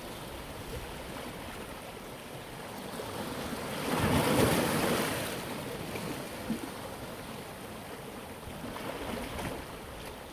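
Sea waves washing onto the shore: a steady wash of surf with one larger wave swelling up and breaking about four seconds in, and a smaller one near the end.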